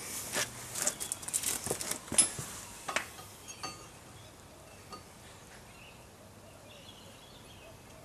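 Sharp metallic clicks and clinks as a micrometer is handled and fitted over the edge of a cast-iron brake disc, several in the first three seconds and the loudest just after two seconds. After that only faint background and a couple of small ticks.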